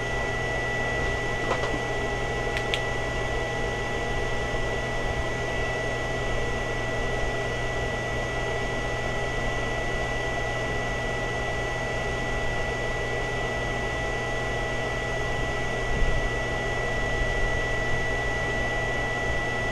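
Pulsed power circuit for an HHO electrolysis cell running under load at about 2 amps, with its cooling fan: a steady electrical hum with a steady high whine over fan noise. A soft bump about 16 seconds in.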